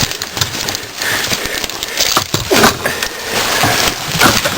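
Dry twigs and brush crackling and snapping irregularly as people push through a willow thicket on foot, over a steady rush of wind on the microphone.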